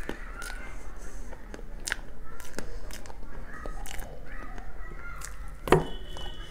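Close-mic eating sounds of soft chocolate cream cake taken from a metal spoon: wet mouth noises and small clicks, with one sharp click near the end. Distant voices and bird calls sound faintly behind.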